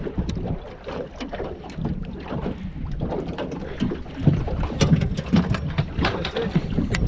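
Wind buffeting the microphone and water slapping against a small aluminium boat's hull, with scattered sharp knocks and clicks that come thicker and louder in the second half.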